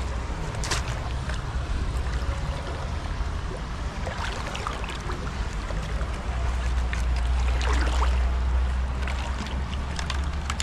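Shallow river water flowing and lapping, with wind rumbling on the microphone and a few small splashes from a hand scoop net moving in the water.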